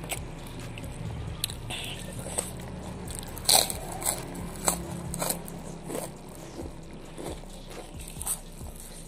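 Close-up sounds of a person eating with their hands: a series of sharp, crunchy bites and wet mouth clicks while chewing, the loudest bite about three and a half seconds in.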